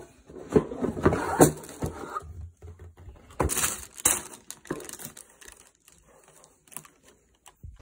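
Cardboard shoebox being opened and tissue paper rustling and crinkling as a wrapped sneaker is handled: irregular rustles and sharp taps, loudest in the first two seconds and again a little past the middle, then fewer and quieter.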